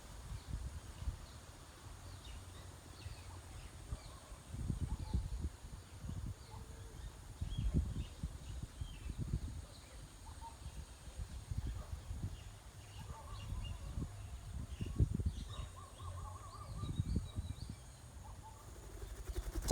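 Faint, scattered bird chirps over an outdoor background, broken every few seconds by low rumbling bumps that are the loudest sounds, with a sharp knock at the very end.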